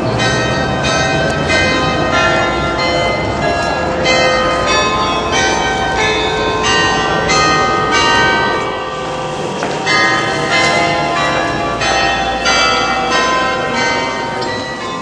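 Church bells pealing: a steady run of strikes, about two or three a second, each left ringing over the next.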